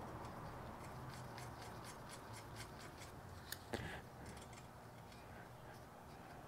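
Faint light metallic ticks and scraping from a threaded stud and nuts being worked by hand, with two sharper clicks about halfway through.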